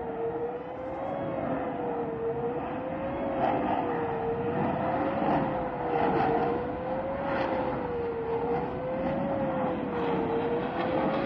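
Air base warning siren sounding for a readiness exercise, its single tone wavering slowly up and down about once every two seconds. Under it, the steady noise of military jet aircraft grows slightly louder.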